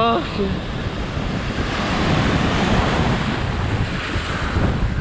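Ocean surf washing up over a sandy beach, the wash swelling about two seconds in, with wind buffeting the microphone. A brief voice cry sounds right at the start.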